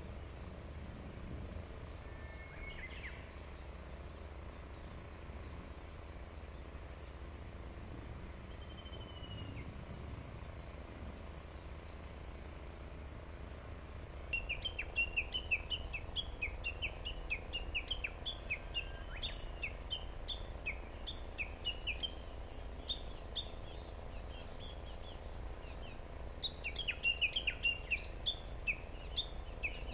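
Small songbirds, plausibly the Japanese tits of the nest box, calling over a steady low rumble. After a couple of single calls, from about halfway there is a rapid run of short, high chirps, several a second. It breaks off briefly and starts again near the end.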